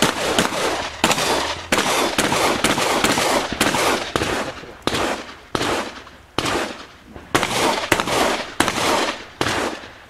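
Rapid string of shotgun shots from a competitor shooting a practical shotgun stage, fired at uneven intervals, some in quick pairs, each shot trailing off in a ringing echo.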